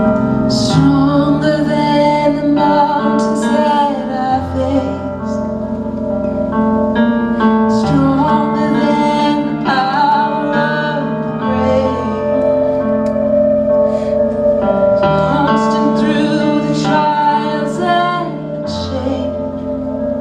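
Christian praise-and-worship music: singing over sustained instrumental chords.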